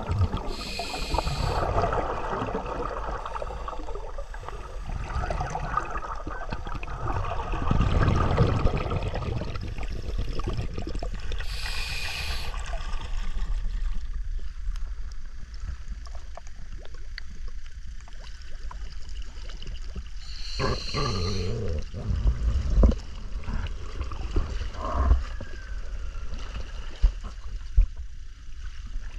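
Muffled underwater water noise and gurgling, with short hissing bursts of bubbles about a second in, at about twelve seconds and at about twenty seconds. Later come splashing at the surface and a few sharp knocks.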